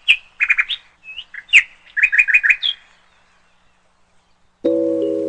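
A small bird chirping in quick runs of short, rising calls, which stop about three seconds in. Near the end, sustained music notes begin.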